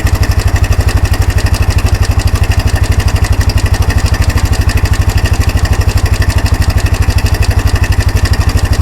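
Kawasaki 300 4x4 ATV's single-cylinder four-stroke engine idling steadily with an even, rapid chug, running again after repair.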